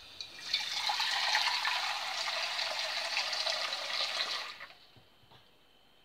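Kitchen tap running water into a saucepan, filling it. The water starts just after the beginning, runs steadily for about four seconds and is shut off.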